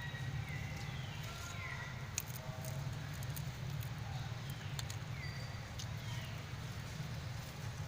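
Baby monkey giving short, high cries that fall in pitch, several times over a few seconds, the distress calls of an infant separated from its mother. A steady low hum runs underneath, with a few scattered clicks.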